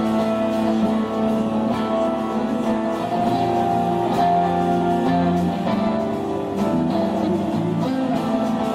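Live band playing without vocals: a guitar holds ringing chords that change every second or so, with drums behind.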